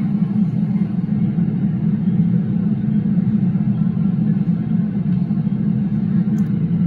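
Steady, even low rumble of an MTR Kwun Tong line train standing at an underground platform, with the station's tunnel noise around it.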